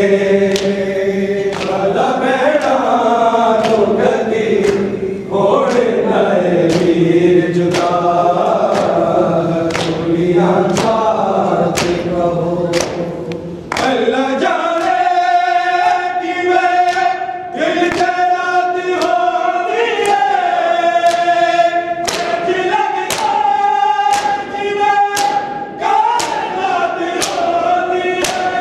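A group of men chanting a nauha in unison, with rhythmic chest-beating (matam) strikes about once a second. Around fourteen seconds in, the chant moves to a higher, held line.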